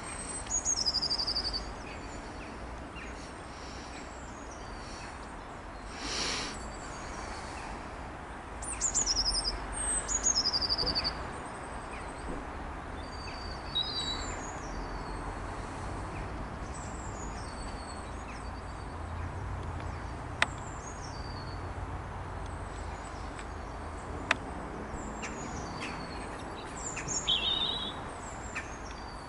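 Small birds calling and singing: repeated short, falling chirps, loudest about a second in and again from about nine to eleven seconds in, over a steady low background rumble. Two sharp clicks stand out later on.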